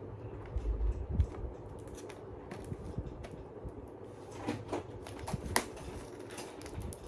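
Cardboard parcel box being handled and opened: low thumps about a second in, then scattered clicks and scraping.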